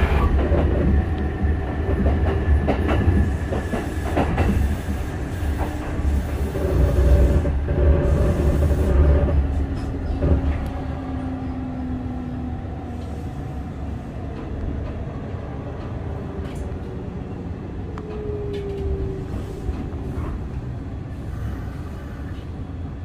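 Electric train running on rails: a low rumble with clicks of the wheels over rail joints and faint tones that glide in pitch. It grows quieter about ten seconds in.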